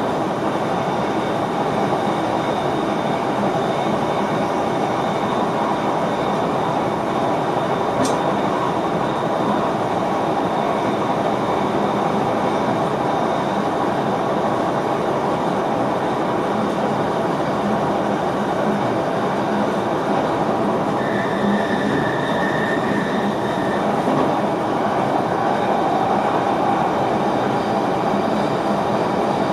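Steady running noise of an NS VIRM double-deck electric train as heard in the driver's cab: a continuous rumble of wheels on rail. A sharp click comes about eight seconds in, and a thin high tone sounds for about three seconds near the end.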